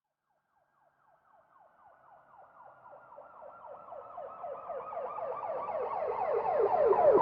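Emergency vehicle siren in a fast yelp: quick falling sweeps, about five or six a second, fading in from silence about a second in and growing steadily louder, with a low rumble underneath near the end.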